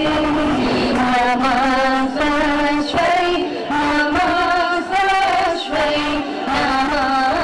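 A chorus of women singing a song together, accompanied by a harmonium that holds a steady drone under the voices.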